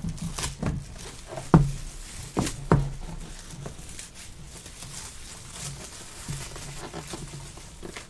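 Plastic shrink-wrap crinkling and tearing as it is peeled off a cardboard trading-card box, with a few sharp taps from the box being handled between about one and a half and three seconds in.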